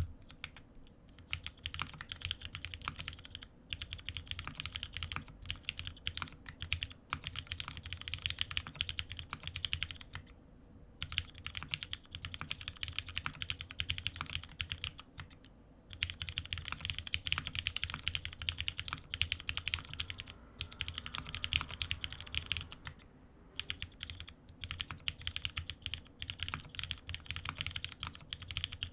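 Fast typing on a Frog mini mechanical keyboard with Krytox-lubed Cherry MX Black linear switches in an aluminium plate, GMK keycaps and no case foam: rapid runs of key clacks, broken by brief pauses a few times.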